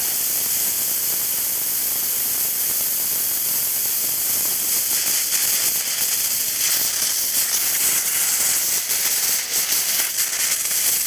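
High-pressure air hissing out of a small filled air cylinder as the bleed screw on its fill fitting is opened: a loud, steady hiss with crackling that grows in the second half.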